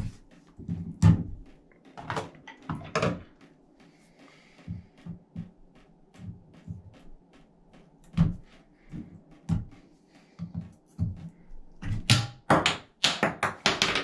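A metal punch tool tapping and scraping against a shower valve handle and its trim: scattered irregular clicks and knocks, as the handle is probed for a way to pry it off. Near the end the knocks come in a quick, louder run.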